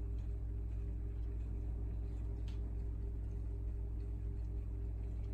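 Steady low hum of running aquarium equipment, with a faint click about two and a half seconds in.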